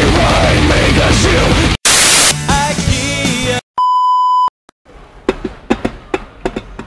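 Heavy metal music cuts off about two seconds in to a short burst of TV static, then a steady test-card beep held for about a second. After it comes a run of sharp metallic clinks as a steel steamer insert and pots are handled.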